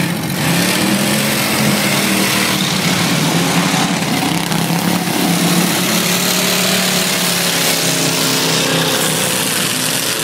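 Engines of several junk cars racing on a dirt track, running hard together with their pitch rising and falling as they accelerate and lift, over a constant loud rush of noise.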